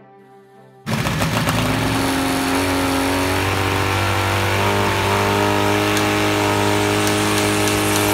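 Homebuilt coaxial helicopter's engine and rotor system running, cutting in suddenly about a second in. Its pitch rises over the next few seconds as it speeds up, then holds steady.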